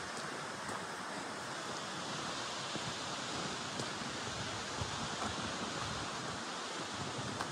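Steady rush of falling water from a waterfall, an even hiss with a few faint ticks.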